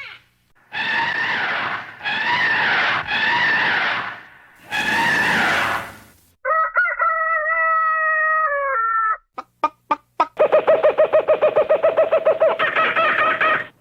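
A run of separate sound effects. First come four harsh, squawking animal-like calls, then a steady held tone of about three seconds. A few sharp clicks follow, then a fast pulsing tone that runs on for several seconds.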